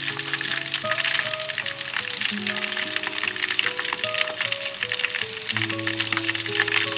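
Food sizzling and spitting in a hot frying pan, a steady dense crackle, under background music with a slow melody of held notes.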